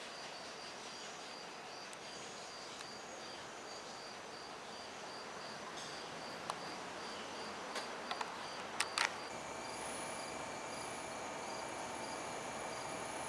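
Faint open-air ambience with a cricket chirping in short high pulses about twice a second. A few sharp clicks come around eight to nine seconds in, after which the chirping stops and a faint steady high whine sets in.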